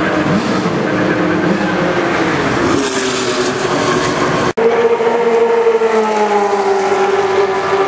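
Classic racing car engines running at speed on the circuit, with their pitch shifting as cars pass. The sound cuts out for an instant about halfway through, and then an engine note falls slowly.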